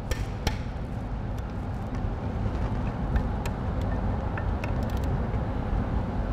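A few sharp, light clicks from a click-type torque wrench and metal tools on the HH7 robot's S-axis motor fixing bolts, two close together at the very start and more scattered singly after. Under them runs a steady low background hum.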